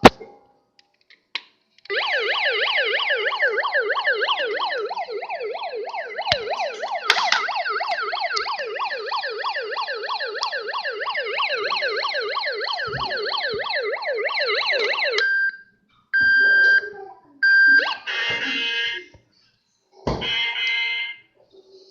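Electronic siren of a 1994 Hess toy rescue truck, a fast yelp sweeping up and down about three times a second. It runs for about thirteen seconds and cuts off suddenly. Three short steady beeps and two brief buzzy electronic bursts follow near the end.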